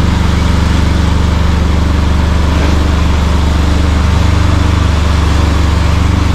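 Aerial lift's engine running at a steady speed, a loud, even low hum that powers the boom as the bucket swings out.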